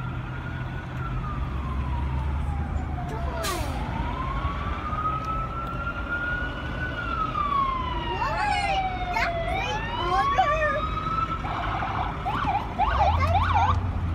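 Emergency vehicle sirens wailing, slowly rising and falling in pitch, heard from inside a moving car over a low engine and road hum. Partway through a second siren overlaps the first, and near the end a siren switches to a fast yelp.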